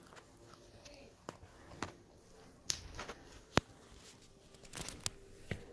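A handful of sharp clicks and knocks at irregular intervals over quiet room tone, the loudest a little past halfway, with a faint voice in the background.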